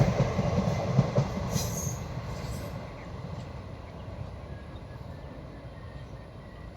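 Passenger train of the 18022 Khurda Road–Kharagpur Express running on the rails, its low rumble fading over the first three seconds to a quieter steady noise. A brief wheel squeal comes about two seconds in.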